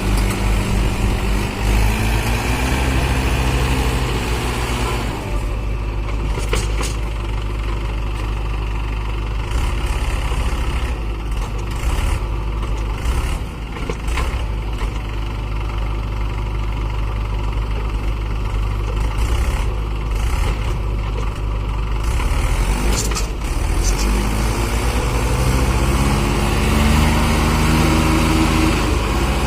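Diesel tractor engine revved hard and straining under load, as when trying to pull a stuck tractor free. Its pitch climbs over the first few seconds, holds rougher with scattered knocks through the middle, and climbs again near the end.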